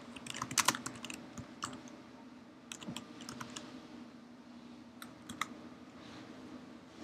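Typing on a computer keyboard: a quick run of keystrokes in the first second or two, then a few scattered clicks, over a low steady hum.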